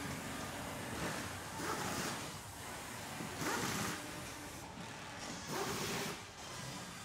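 Dremel rotary tool with a small sanding drum grinding the steel head of an antique cobbler's hammer, a rasping noise that swells and fades in uneven surges every second or two as the drum bears on the metal.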